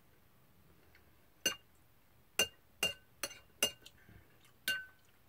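A metal spoon clinking against a glass bowl about six times, each a sharp tap with a brief ring, as it scoops up noodle soup.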